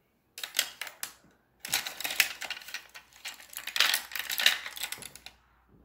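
Rapid clattering and clicking of small hard objects being handled or rummaged through. A short burst comes just under a second in, then a longer run of about three and a half seconds.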